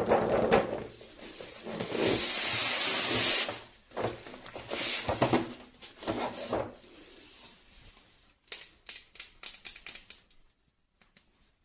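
Hands handling a toy doll and its plastic packaging, with rustling and crinkling and a steady scratchy hiss for a second or so. Near the end come a run of quick small clicks.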